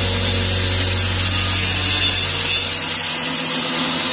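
Angle grinder running in a mounted cut-off stand, its disc cutting into a strip of wood.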